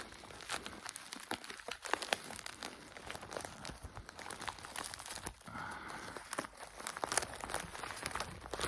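Packaging crinkling and tearing as a mailed parcel is opened by hand, with many irregular small clicks and rustles.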